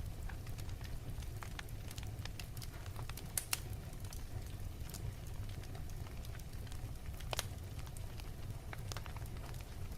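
Wood fire burning, with a steady low rumble and scattered sharp crackles and pops, two of them louder, a little past three seconds in and about seven seconds in.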